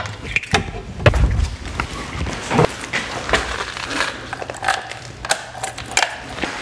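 Scattered clicks, knocks and rustling of hand-handling noise as keys are taken from a wall cabinet.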